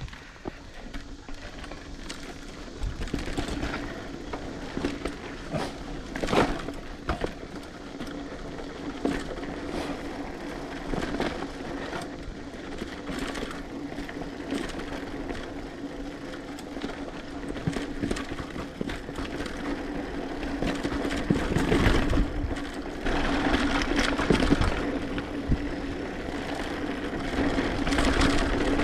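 Mountain bike being ridden over a trail: a steady hum with repeated knocks and rattles as the bike runs over bumps, growing louder and busier in the last third.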